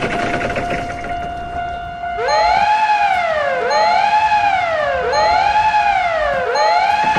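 A steady buzzing tone, then about two seconds in a wailing siren starts, rising and falling in pitch about once every one and a half seconds, four times, over the continuing tone.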